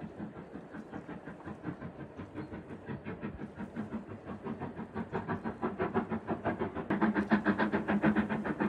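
Steam locomotive hauling a train, its chuffing exhaust beating in a fast, even rhythm that grows steadily louder.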